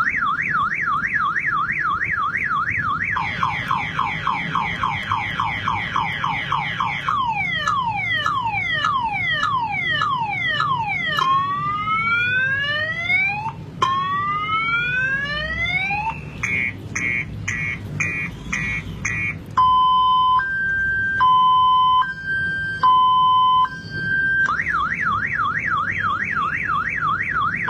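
An electronic police-style siren cycles through its tones. First comes a fast yelp, then a slower wail, a run of falling sweeps, then rising sweeps, a quick pulsed beeping, and a two-tone hi-lo alternation, before it returns to the fast yelp near the end.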